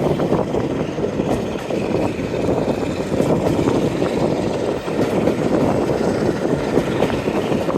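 Class 45 diesel locomotive's Sulzer 12-cylinder engine working steadily under load, a dense continuous rumble mixed with train running noise.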